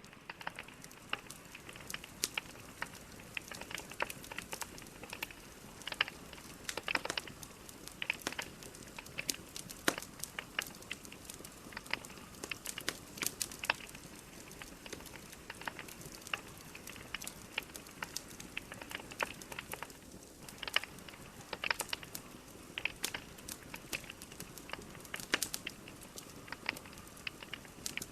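Logs burning in a fireplace: irregular sharp crackles and pops, several a second, over a soft steady hiss.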